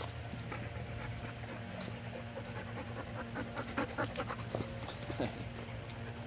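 A dog panting close by over a steady low hum, with a few sharp clicks and rustles about four seconds in.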